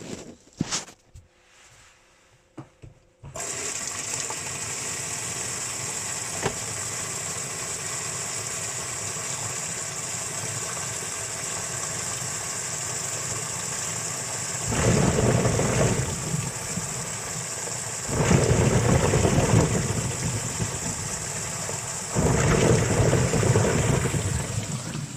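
Washing machine washing taro in water: a few clicks, then from about three seconds in a steady rush of water, with three louder churning surges in the last ten seconds as the drum agitates.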